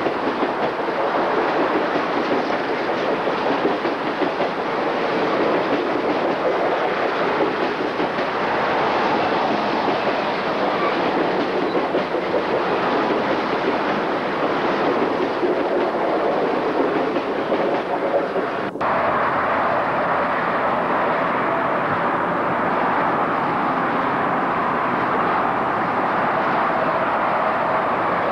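Amtrak passenger train passing, with a steady rush of wheels on rail as its double-deck passenger cars roll by. About two-thirds of the way through, a sharp click breaks the sound, and the rush carries on slightly changed after it.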